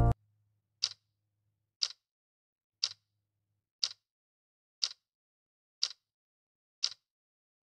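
Clock-style timer ticking, one sharp tick each second.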